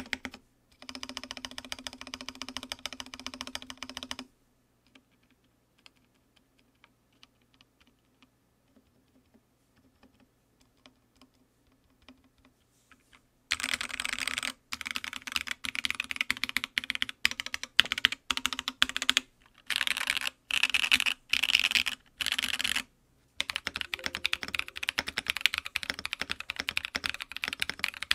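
Typing on an Odin Gaming Nova65 gasket-mount 65% mechanical keyboard with an aluminum plate and Dark Dolch keycaps, recorded close up. The first stretch is on Moyu Studio Queen switches: a burst of typing, a pause of about nine seconds with only a few faint clicks, then fast typing again with short breaks. After a brief stop near the end, the typing continues on AEBoards Naevy switches.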